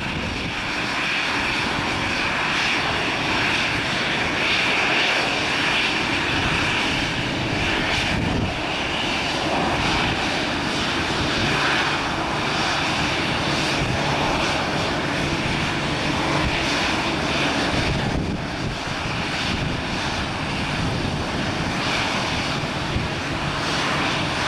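Twin-engine jet airliner's engines running steadily during pushback: a continuous whine and rush with no change in level.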